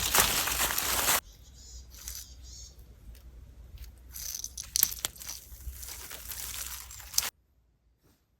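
Rustling and crunching noise, loud for about the first second and then cut off sharply, followed by quieter rustles and scattered clicks that stop suddenly near the end.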